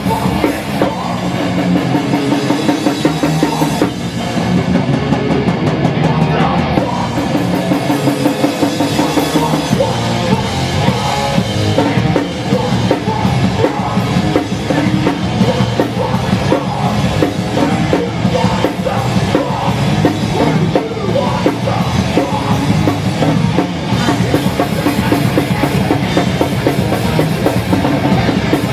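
Hardcore punk band playing live: fast drums, distorted guitars and bass, loud and dense.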